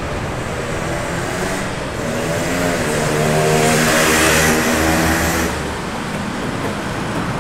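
Road traffic with a motor vehicle's engine passing close by, swelling about two seconds in and fading again near the end.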